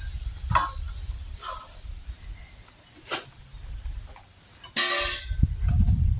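Dry dog food shaken in a container in a few short rattles, a call to the turkeys that the treat is coming. About five seconds in comes one short, loud, nasal honk-like call, with wind rumbling on the microphone throughout.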